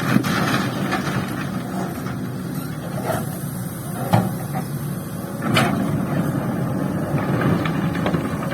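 Hydraulic excavator's diesel engine running steadily under load, with three sharp clanks a couple of seconds apart, from the bucket and material striking a dump truck bed.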